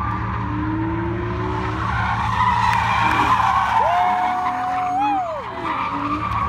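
A car drifting on asphalt: its tyres screech continuously while the engine runs hard underneath. About four seconds in, one high tone holds, then sweeps up and falls away.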